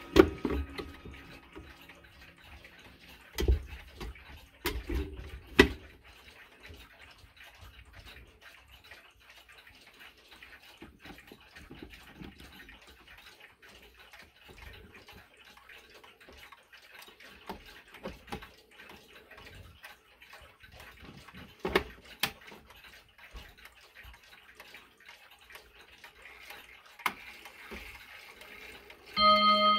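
Clocks ticking faintly, with a few sharp wooden knocks in the first seconds as a pendulum wall clock's glass door is handled and shut. Just before the end, a Junghans wall clock starts chiming the half hour in clear ringing tones.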